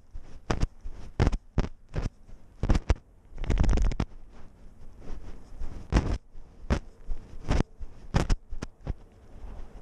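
A camera worn on a walking cat knocking and scraping with its steps on gravel: irregular sharp knocks, one or two a second, with a longer rough scraping rustle a little over three seconds in.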